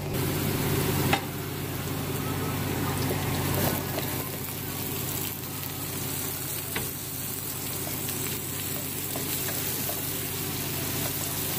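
Food sizzling in hot oil in a pan, with a few sharp clicks over a steady low hum.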